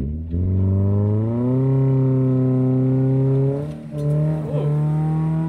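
Subaru Crosstrek flat-four engine revving up and held at high revs while the manual clutch is slipped to crawl up a steep climb. The revs dip briefly about four seconds in and come back up. The slipping is hard enough to leave a burnt-clutch smell.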